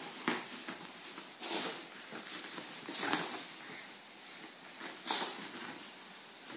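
Small shaggy dog rolling and rubbing itself on a duvet to dry off after a bath: the bedding rustles in four louder bursts, one every one to two seconds.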